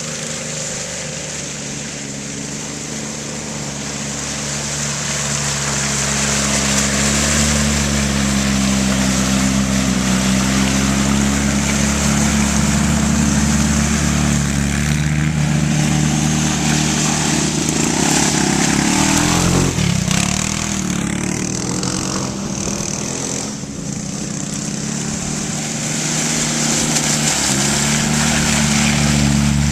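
All-terrain vehicle engine running under load, getting louder about five seconds in, easing off with a shift in pitch around two-thirds of the way through, then pulling again near the end.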